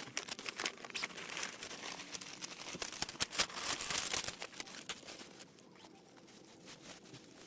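Irregular rustling and crinkling, as of gear or plastic being handled, busiest for about five seconds and then thinning out.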